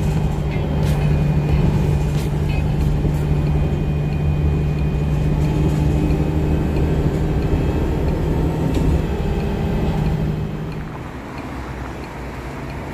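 Interior of a moving city bus: a steady low engine hum and road noise, with occasional light clicks and rattles. About eleven seconds in, the bus sound drops away to a quieter background.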